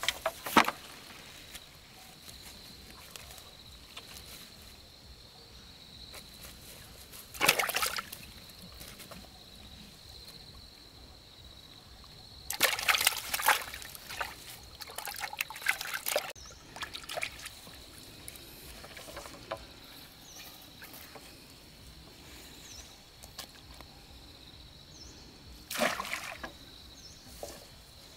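Water sloshing and splashing in separate bursts: a short one at the start, another about a quarter of the way in, a longer run of splashing around the middle and a last burst near the end. A thin, steady high-pitched tone sounds throughout.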